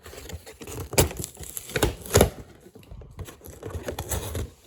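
Doll packaging being handled and pulled open: crinkling and tearing of the wrapping, with two sharper, louder rips about one and two seconds in.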